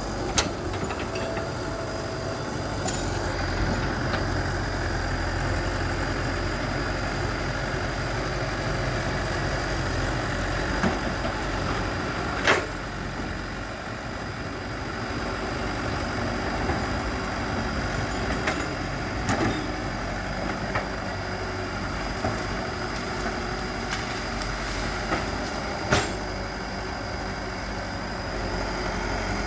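Excavator's diesel engine running steadily, with a few sharp knocks, the loudest about halfway through and another near the end.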